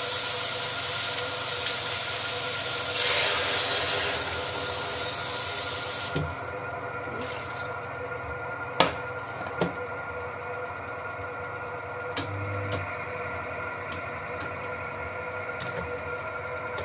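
Beef ribs and garlic sizzling hard in a stainless-steel wok, loudest about three seconds in; the sizzle dies away about six seconds in, once the rendang sauce and water are in the pan. After that come a few sharp knocks of the spatula against the wok.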